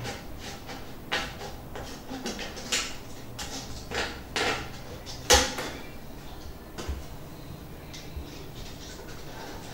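Scissors snipping through a thin clear plastic mineral-water bottle: an irregular run of short, crisp snips and plastic crackles, the sharpest about five seconds in.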